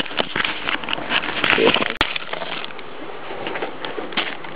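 Handling noise: rustling with many small clicks and knocks as the camera is moved and set down at bench level beside a circuit board. There is a brief dropout about two seconds in.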